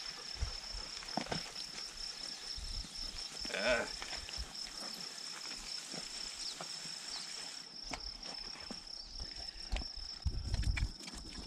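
A steady, high-pitched insect trill, pulsing rapidly, runs throughout. About three and a half seconds in comes a short, wavering call, and near the end there are low thumps and knocks.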